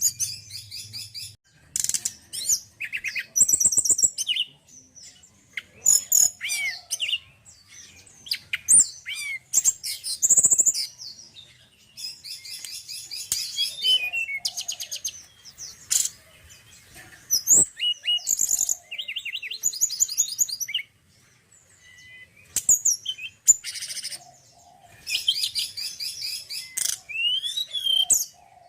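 A male tledekan gunung (Sunda robin) singing: bursts of varied high chirps and rapid trills, separated by short pauses.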